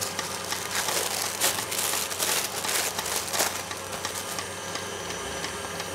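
Parchment baking paper rustling and crinkling as baked biscuit discs are lifted and peeled off it, busiest in the first three seconds or so, then softer handling.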